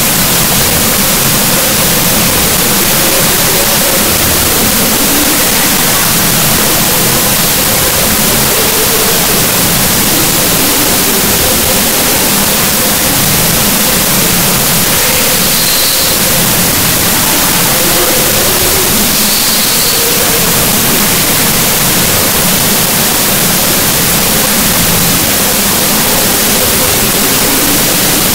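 Loud, steady static hiss, like digital noise from a corrupted file, with faint wavering tones buried beneath it.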